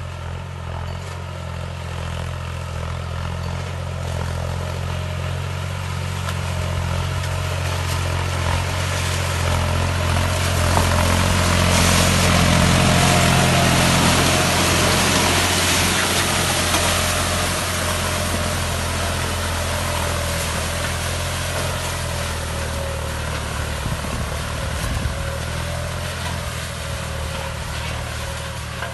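Tractor's diesel engine running under load as it pulls a heavy disc harrow through crop residue, with the discs churning soil and stalks. It grows louder as the tractor comes close, loudest a little before the middle, then fades as it moves away.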